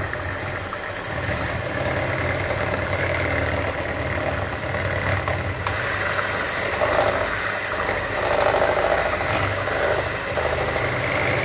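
Bosch electric hand mixer running on a low setting, its motor humming steadily while the two whisk beaters churn through a runny batter of eggs, milk, sugar and softened butter.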